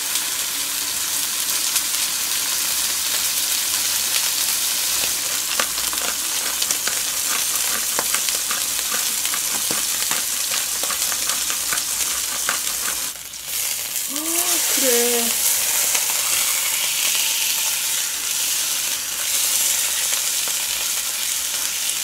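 A thick slab of hanwoo striploin steak searing in a hot frying pan: a steady fat sizzle that drops out briefly about thirteen seconds in.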